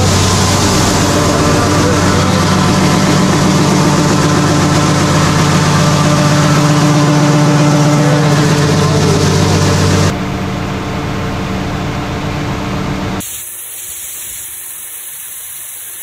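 Tractor engine driving a grain auger, with shelled corn pouring from a semi-trailer's hopper into the auger hopper: a steady low hum under a rushing hiss. The level drops about ten seconds in, and a few seconds before the end the sound thins abruptly to a faint hiss.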